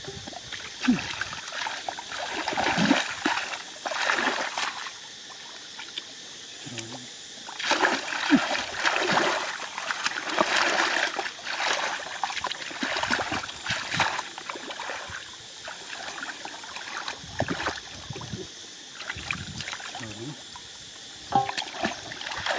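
Hands sloshing and splashing through shallow muddy water while groping for fish, in irregular bursts with quieter pauses between.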